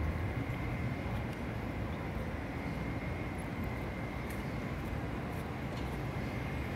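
Steady street traffic noise, a low even rumble with a faint steady high tone above it.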